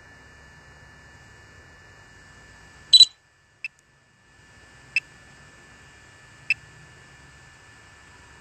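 A loud camera-shutter sound effect from the drone's control app about three seconds in, over a faint steady electronic hum. It is followed by a brief drop-out and three short, high beeps.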